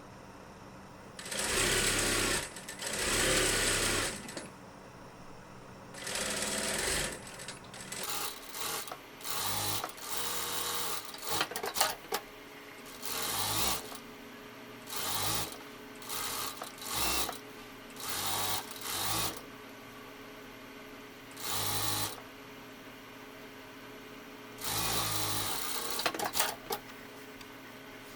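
JUKI DDL-900C industrial single-needle lockstitch sewing machine stitching in short runs, starting and stopping a dozen or more times, each run lasting about half a second to a second and a half.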